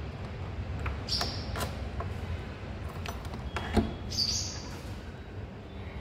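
Emergency key turning in the mechanical cylinder of a fingerprint smart door lock and the lever handle working the latch: a string of small metallic clicks, a louder clack a little before four seconds in, and two short high chirps, one about a second in and one about four seconds in.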